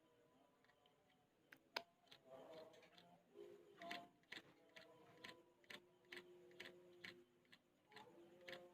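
Yellow-vented bulbul nestling begging: faint, short ticking chirps, about two a second, starting a second or two in.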